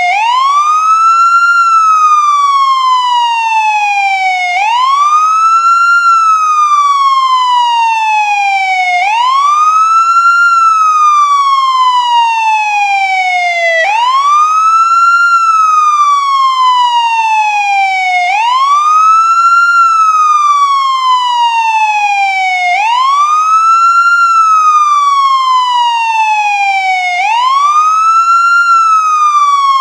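American ambulance siren on its wail setting, sounding loud and continuously: each cycle, about every four and a half seconds, the pitch rises quickly, then falls slowly before rising again.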